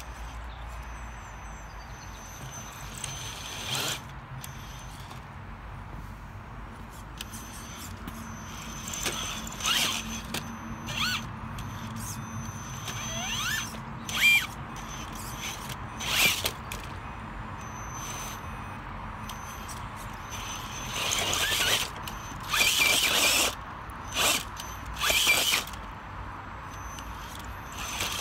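Traxxas TRX-4 RC crawler's electric motor and geared drivetrain whining in short bursts of throttle as the truck climbs over cobblestone curbs, with a few rising whines as it speeds up; the loudest bursts come in a cluster near the end.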